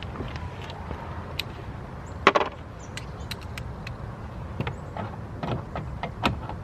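Scattered clicks and knocks of hand work at a car door: a screwdriver, screws and door parts being handled, with one louder knock a little over two seconds in, over a steady low hum.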